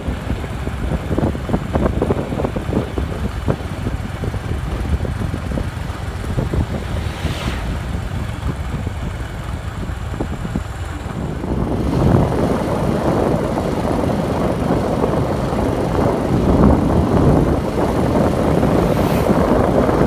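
Wind rushing over the microphone and the running noise of a moving motor scooter, a dense rumble that grows louder about halfway through.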